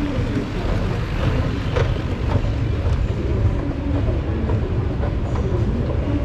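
Steady low rumble of an underground MRT station, with a few light clicks.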